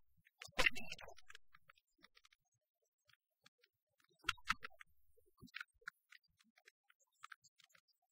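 Sparse, irregular faint clicks and ticks, with two louder knocks, one about half a second in and another about four and a half seconds in.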